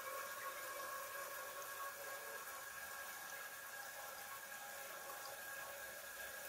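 Faint, steady hiss of water from a toilet cistern refilling, with a thin whine of the fill valve.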